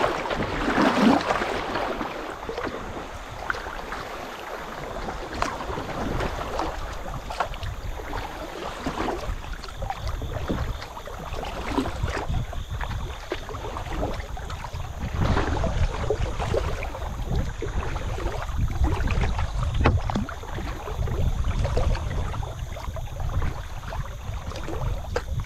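River water rippling and splashing along a kayak's hull as it drifts through a shallow riffle, loudest in the first couple of seconds. Wind rumbles on the microphone through the second half.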